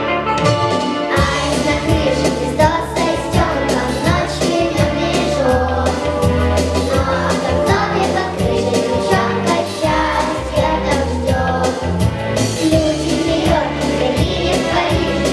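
A song: singing over an instrumental backing track with a steady beat and bass.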